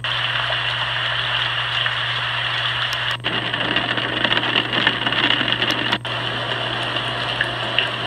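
Pictek HP007B white noise machine playing recorded water sounds through its small built-in speaker: a steady rushing hiss. It cuts out briefly about three seconds in and again about six seconds in, as the machine steps to the next preset sound, the second one fuller in the low end.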